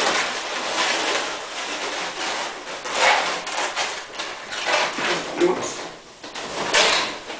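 Twisted latex modelling balloons rubbing and squeaking against each other and against the hands as a balloon figure is handled, in irregular spells, loudest about three seconds in and near the end.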